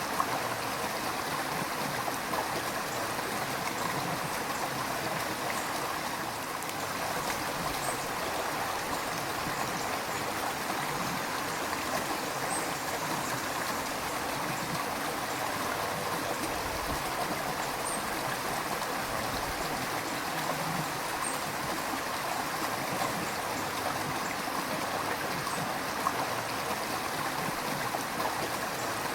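River water flowing steadily over rocks: a continuous rush with babbling and gurgling.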